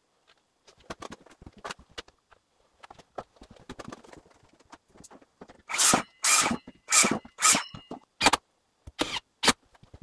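Building work at a bathroom wall: scattered small knocks and clicks, then a run of six loud, short rasping strokes about six to eight seconds in, followed by a few more knocks.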